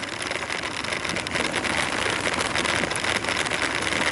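Steady noise of a bicycle being ridden on a dirt road: wind on the microphone and tyres rolling over gravel and sand.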